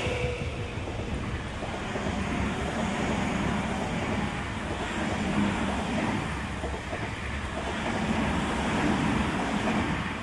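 Electric commuter trains running on the track: a steady rumble of wheels on rails as one train moves off and another comes slowly in toward the platform, dying away near the end.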